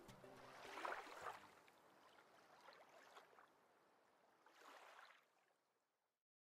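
Very quiet ending: the last faint notes of background music trail off in the first second, with soft swells of whooshing noise around one second in and again near five seconds, then fading to complete silence about six seconds in.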